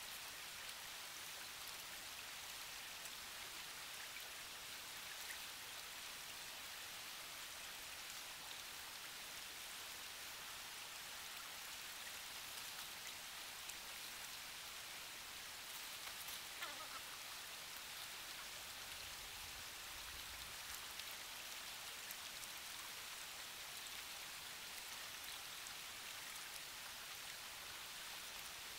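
Creek water running, a steady, faint hiss with a few small ticks.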